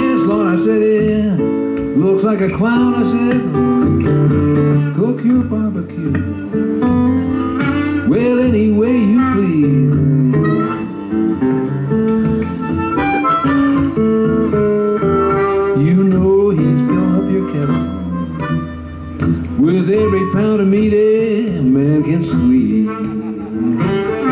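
Blues harmonica soloing with bent, sliding notes over acoustic guitar and a second plucked string instrument, an instrumental passage of a live acoustic blues in the key of A.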